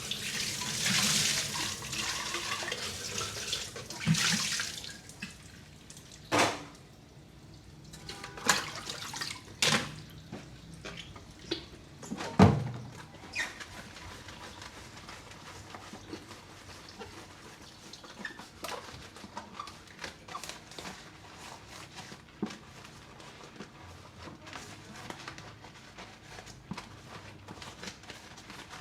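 Kitchen tap running into the sink for about five seconds, then turned off. After that come scattered knocks and clinks of dishes being handled, the loudest about twelve seconds in, then only small occasional clicks.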